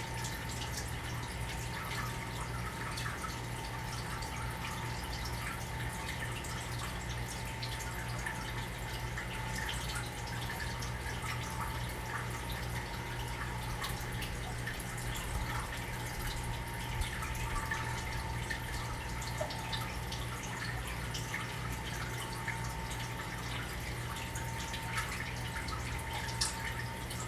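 Fish tank running: water trickling and dripping steadily, with a steady low hum underneath.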